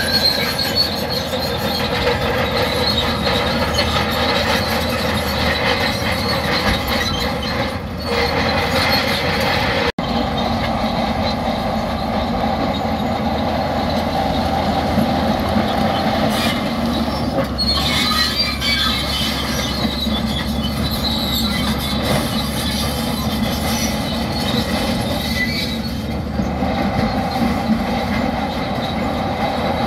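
Heavy earthmoving machinery at work: diesel engines droning steadily under high, thin metallic squeals, with a brief dropout about ten seconds in.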